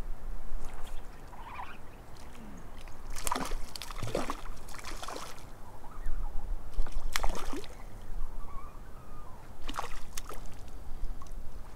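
A hooked trout splashing at the water's surface close to shore: several short splashes, about three to five, seven and ten seconds in, over a low rumble on the microphone.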